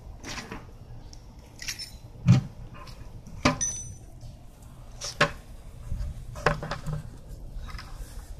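Handling noise: a handful of irregular clicks and knocks, some with a light metallic clink, the loudest a knock just past two seconds in.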